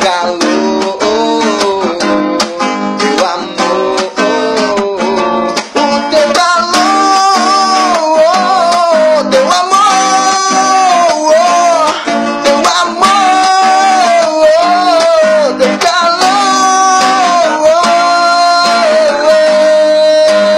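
Acoustic guitar strummed steadily, joined about a third of the way in by a man's wordless singing that bends up and down and ends on one long held note.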